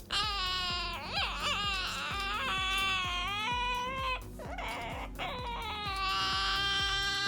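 Ducorps's cockatoo giving a run of long, nasal, whining calls that sound like a crying baby, their pitch wavering and bending, with short breaks in between. Background music plays underneath.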